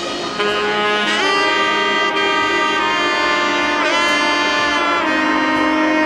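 Amazigh music: a reedy wind instrument playing long held notes with quick bends in pitch, over a lower held note that moves to a new pitch about five seconds in.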